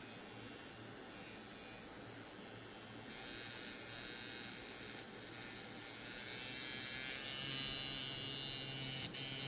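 Coil tattoo machine running on its power supply, a steady electric buzz from the armature bar chattering against the contact screw. Its speed and buzz change about three seconds in and again past seven seconds as the supply is turned up, from about 108 cycles a second at a low duty cycle toward about 130.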